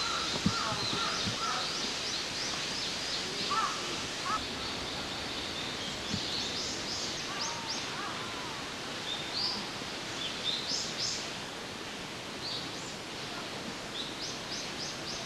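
Forest birdsong: several birds calling, with runs of short, high rising notes repeated in quick series and a few lower calls in the first half, over a steady background hiss of woodland ambience.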